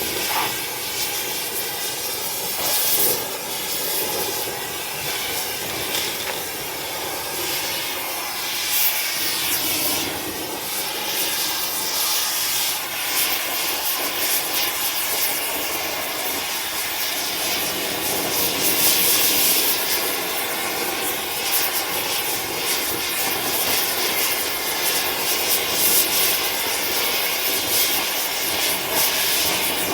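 Oxygen-acetylene torch with a rosebud heating tip burning steadily, a loud even rushing hiss of flame, as it scorches the surface of pine wood to make the grain stand out.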